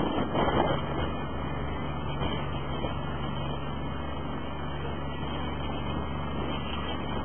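Motorboat engine running steadily under way, a constant low drone mixed with the rush of water and wind; the rushing noise swells louder for about the first second.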